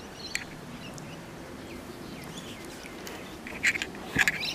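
Small birds chirping faintly now and then over a steady low hiss. Near the end come a few short rustles and a knock from climbing among the tree's branches.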